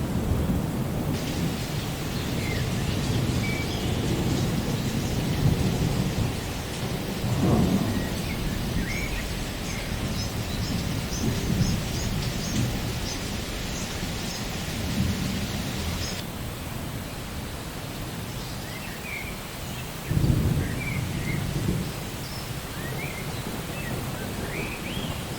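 Steady rain with thunder rumbling low throughout, and a louder roll of thunder breaking in suddenly about twenty seconds in.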